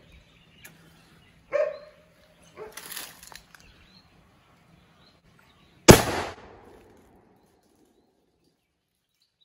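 An 'atom bomb' firecracker going off inside a homemade monkey-scaring noise gun, a short galvanised-iron pipe packed with small stones on a bamboo pole. One loud, sharp bang about six seconds in, blowing the stones out of the pipe, then dying away over about a second.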